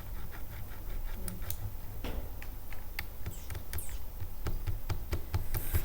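Irregular clicking of computer keys, a few short clicks at a time, over a low steady hum.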